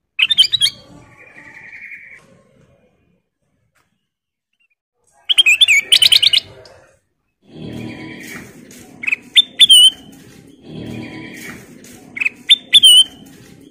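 Kutilang emas, a bulbul, chirping and whistling in bursts of quick, sharp notes with short rising whistles. There are four bursts, separated by pauses of a second or more.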